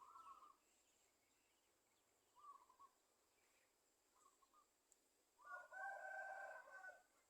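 Faint bird calls: a few short calls, then a louder, longer call lasting about a second and a half near the end.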